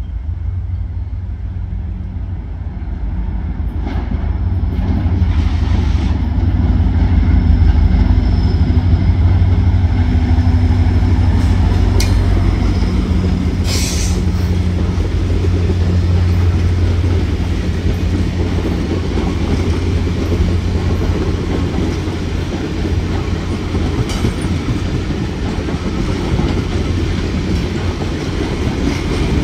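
Diesel-hauled passenger train rolling slowly past: a steady low rumble of the cars' wheels on the rails, under a low locomotive engine drone. A short high hiss comes about halfway through.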